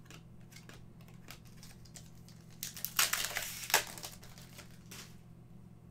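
Light ticks of trading cards being flipped, then, about two and a half seconds in, a trading card pack's foil wrapper crinkling loudly for about a second and a half as it is handled.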